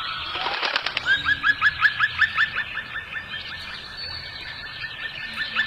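Birds chirping: a fast, even run of short rising chirps, about five a second, after a brief clatter about half a second in.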